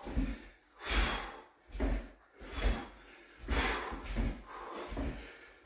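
Feet landing on a wood floor in a steady rhythm of skater jumps, side-to-side bounds with about one landing a second, along with hard breathing.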